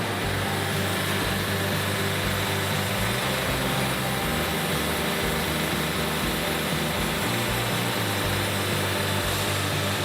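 A machine's engine running steadily under a wash of mechanical noise.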